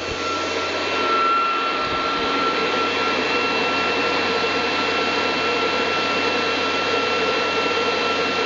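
NetGain WarP9 brushed DC electric motor spinning at about 5,400 RPM: a steady whir with a fixed high whine. It grows slightly louder about a second in, then holds steady.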